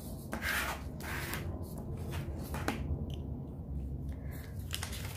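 A square sheet of origami paper rustling and sliding in a few short swishes as it is folded along its diagonal and creased by hand, with a sharp click about three seconds in.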